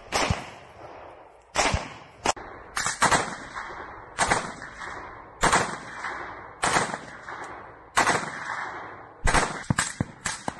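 Assault rifle gunfire: single shots and quick pairs or triplets at irregular intervals of about a second, each shot trailed by a short echo.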